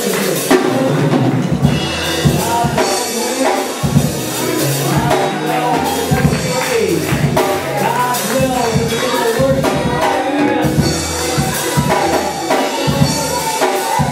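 Live worship music with a drum kit and tambourine keeping a beat and voices singing over a bass line.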